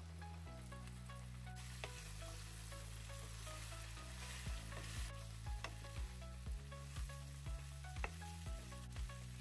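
Cut okra tipped into hot oil in a non-stick wok with fried potatoes and spices, sizzling, with the hiss building about a second and a half in. From about halfway on, a wooden spatula stirs and knocks against the pan about twice a second.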